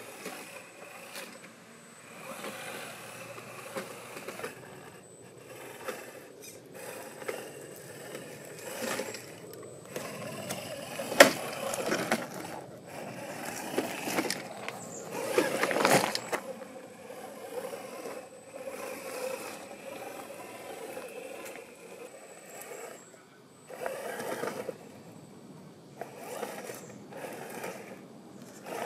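A 1/8-scale RC rock crawler's 550-size electric motor and geared drivetrain whirring in uneven bursts as it is driven over rock, with its tyres scraping on the stone. One sharp knock partway through is the loudest sound.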